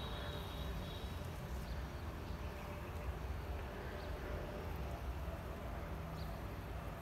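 Quiet outdoor background: a low, uneven rumble with no distinct event, and a faint high thin tone in the first second.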